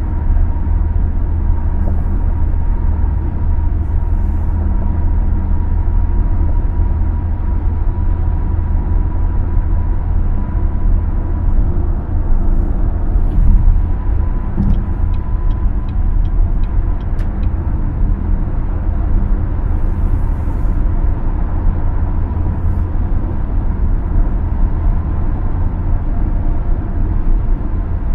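Cadillac XT5 driving at highway speed: a steady low rumble of road and engine noise with a faint steady tone above it. A short run of light, evenly spaced ticks comes about halfway through.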